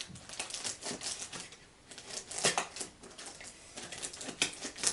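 Packaging being handled and opened by hand: irregular crinkles, taps and rustles of box and wrapping.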